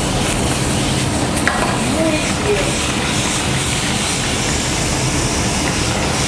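Carrots, broccoli and green beans sizzling as they are sautéed in a frying pan over a high gas flame, with a steady rushing noise throughout.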